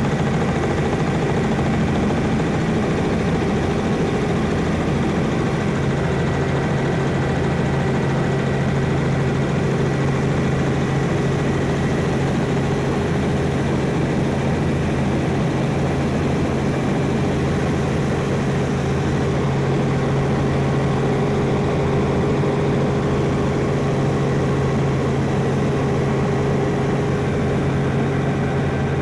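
Helicopter in flight: a steady, unbroken drone of turbine and rotor with a strong low hum and fainter steady whines above it.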